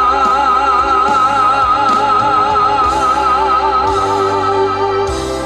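Male trot singer holding the song's long final note with wide vibrato over a live backing track; the note dies away about five seconds in, leaving the band playing on.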